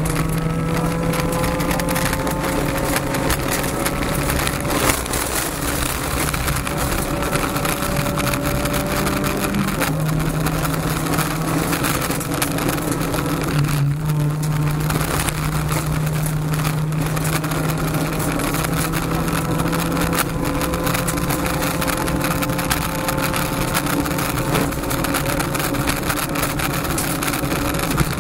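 Honda Civic rally car's engine pulling hard at high revs, heard from inside the cabin, its pitch climbing slowly and stepping abruptly a few times as gears change. Loose-gravel road noise and scattered knocks under the car run throughout.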